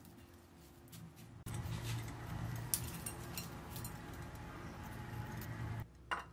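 Faint rustling and crunching of crushed cornflakes as prawns are pressed into the coating by hand. About a second and a half in, a louder steady low hum with hiss comes in abruptly, with a few light ticks, and stops shortly before a single click near the end.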